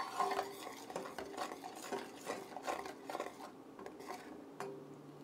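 Metal spoon stirring melted garlic butter in a stainless steel saucepan, scraping and clinking against the pan at about two strokes a second.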